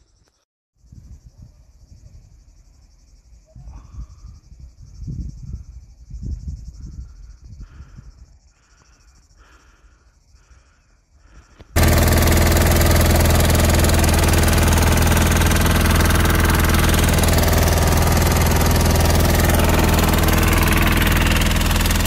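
Forest fire burning close by: a loud, dense crackling noise that starts suddenly about halfway through. Before it there is only quieter, uneven low rumbling.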